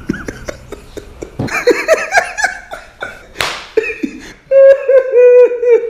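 A man laughing heartily: short bursts of laughter at first, then from about four and a half seconds in a loud, fast run of rhythmic 'ha-ha-ha' laughs, the loudest part.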